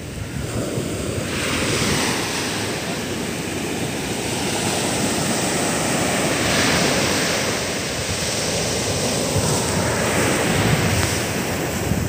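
Heavy storm surf breaking and washing up a sandy beach, a continuous rush of foam that swells with each wave, about three times. Wind buffets the microphone underneath.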